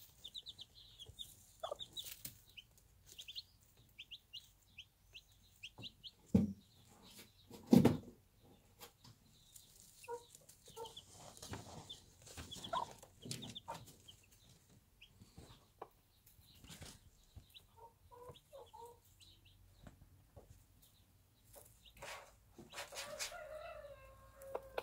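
Bantam chicks peeping in short, high cheeps, and their bantam hen clucking softly. Two loud knocks come about six and eight seconds in, and near the end the hen gives a longer, falling call.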